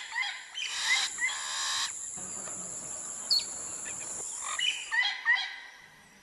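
Birds giving short rising chirps, several times, over a steady high-pitched buzz; the sound fades away near the end.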